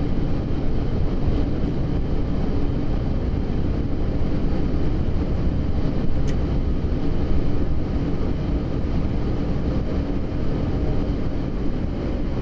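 Boeing 747-8F's four GEnx engines in reverse thrust during the landing rollout, heard from the cockpit as a loud, steady rumble mixed with runway and airframe noise. The "reverse normal" call means the reversers have deployed as they should as the freighter slows toward sixty knots.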